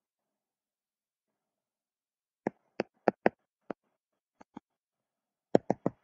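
Stylus tip tapping and clicking on a tablet screen during handwriting: silence for about two and a half seconds, then a run of sharp, separate clicks, ending in a quick cluster of four.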